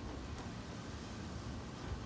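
Faint, steady low outdoor rumble with no distinct events.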